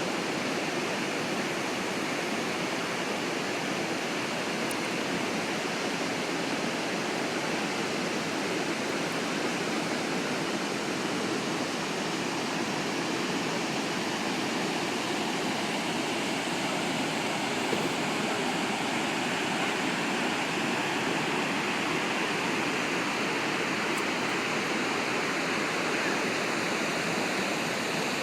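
Waterfall pouring, a steady rushing roar of falling water.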